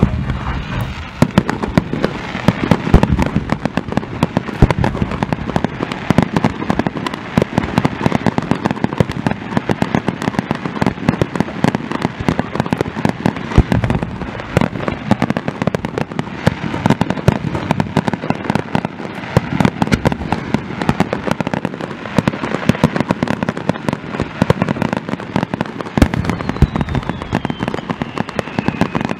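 Fireworks display: a continuous rapid barrage of bangs and crackles from aerial shells and underwater fireworks bursting at the sea surface, several reports a second, with a faint falling whistle near the end.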